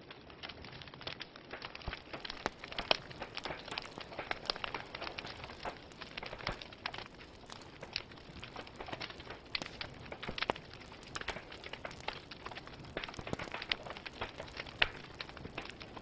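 Wood fire of burning logs: a steady hiss of flames with frequent, irregular sharp crackles and pops.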